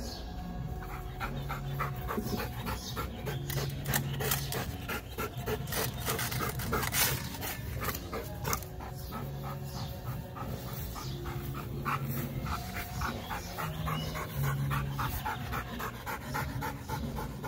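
Belgian Malinois panting hard and fast, worn out after exercise.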